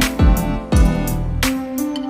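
Instrumental background music: held notes over a recurring deep, thudding beat.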